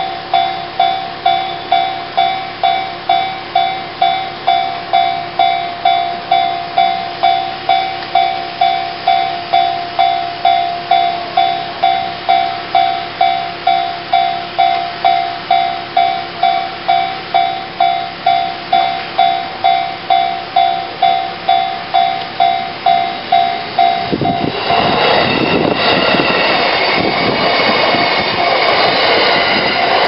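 Japanese level-crossing warning bell ringing in an even electronic ding-ding at about two strikes a second. About 24 seconds in, its ringing gives way to the loud running and wheel-on-rail noise of a JR E233 series electric train passing over the crossing.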